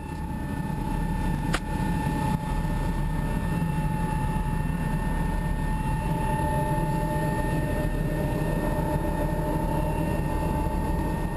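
A vehicle engine running steadily under way: a low rumble with a steady whine above it, growing louder over about the first second.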